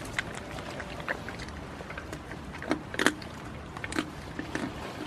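A goat biting and crunching a peanut in its shell: a run of irregular, sharp crunches, the loudest about three seconds in.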